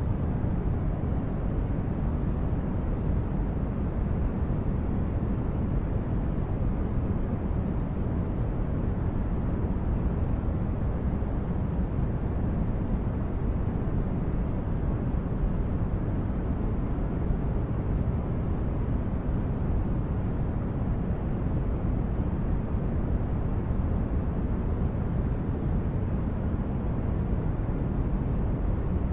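Synthesized spaceship-interior ambience: a steady, deep rumbling noise, heaviest in the low end and thinning toward the highs, like brown noise, with no changes or distinct events.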